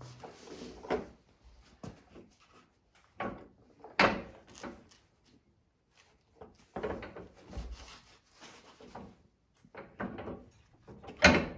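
A run of separate wooden knocks and scrapes as a wooden caster dolly and its wood blocks are shifted and slid into place under the front hitch frame. There is a pause about halfway, and the sharpest knock comes near the end.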